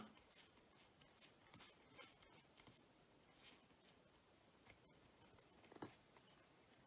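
Near silence, with faint scratching and small clicks of fingers handling a plastic model locomotive chassis and bogie; one slightly louder click a second before the end.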